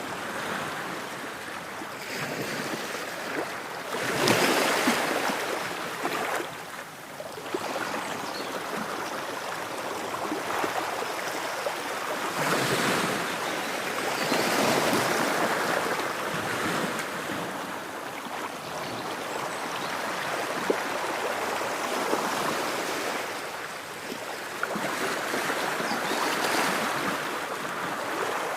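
Ocean waves washing ashore, with louder surges breaking about every ten seconds over a steady wash.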